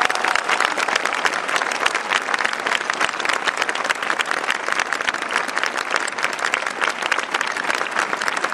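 Large crowd applauding steadily: a dense, even clatter of many hands clapping.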